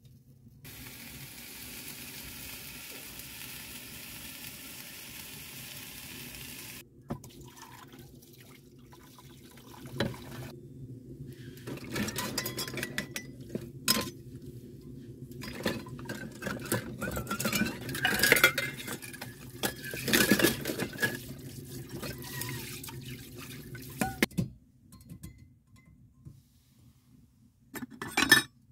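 Metal dishes and cutlery washed by hand in a small basin of water: irregular clinking and scraping with splashing water, loudest in the middle and stopping about four seconds before the end. It starts after a steady hiss of about six seconds, and a single short clink comes near the end.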